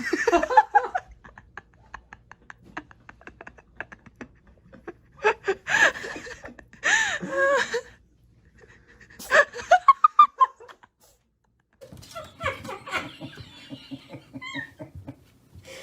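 People laughing in several separate bursts, including a quick run of short laughs about two thirds of the way through, with other short sounds between them.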